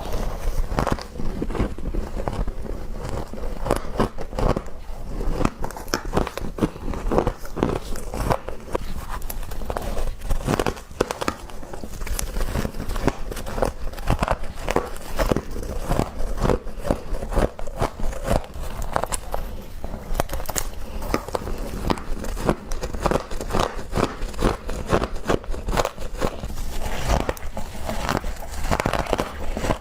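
Close-miked biting and chewing of frost: a dense, continuous run of crisp crunches and crackles, several every second.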